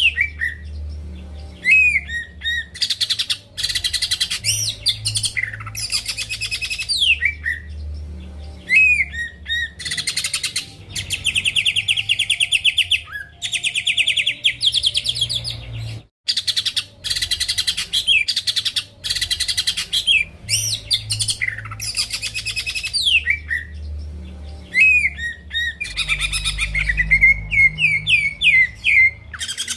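Green leafbird (cucak ijo) in full song: loud, fast, varied phrases of rapid trills, chattering notes and sweeping down-slurred whistles, with a brief break about halfway through. A faint low hum lies underneath.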